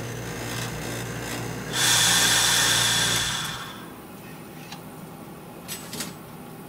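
Vacuum casting machine's pump humming steadily, then a loud hiss of air rushing in with a thin whistle as the vacuum is released about two seconds in; the pump hum stops a little over three seconds in and the hiss fades away soon after.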